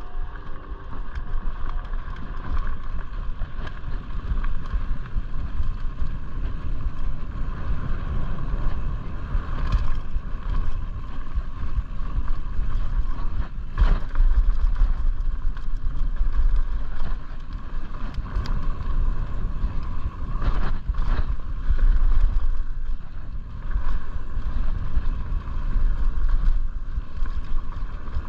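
Mountain bike ridden fast down a dry dirt trail: a steady rush of wind on the microphone over the tyres rolling on dirt and the bike rattling, with a few sharp knocks from bumps in the trail.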